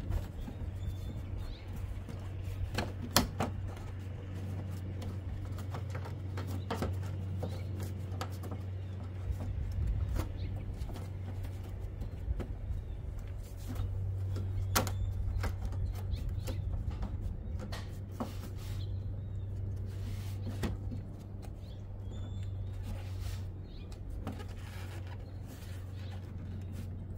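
A plastic radiator shroud cover being handled and pressed into place over the grille: scattered plastic clicks and knocks over a steady low hum.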